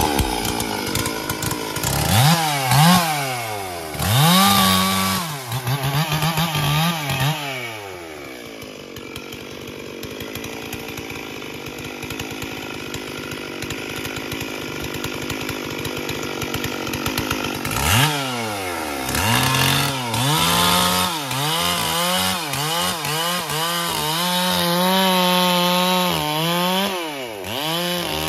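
Stihl MS 440 two-stroke chainsaw revving up and down again and again, with a steadier, quieter stretch of running in the middle; the revs fall away just before the end.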